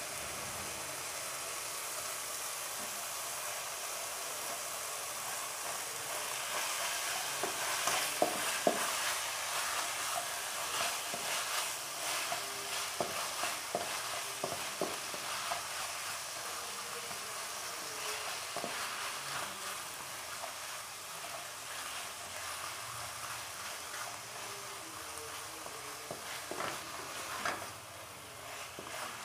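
Chicken pieces frying with a steady sizzle in a nonstick wok, stirred with a spatula that scrapes and knocks against the pan. The stirring strokes come thickest and loudest through the middle stretch.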